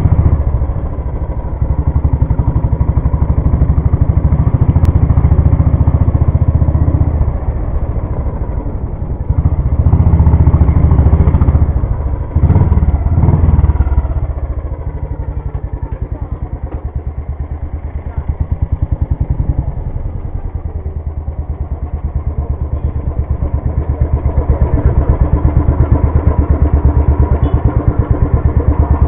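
Motorcycle engine heard from on the bike as it rides slowly, running with a rapid low pulse that swells and eases with the throttle. It revs briefly about twelve seconds in and grows louder again near the end.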